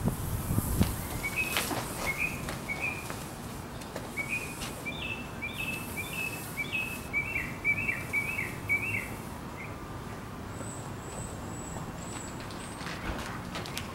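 A bird chirping a quick series of short, repeated notes for several seconds, followed later by a run of high, thin notes. A sheet of plastic film crackles briefly near the start.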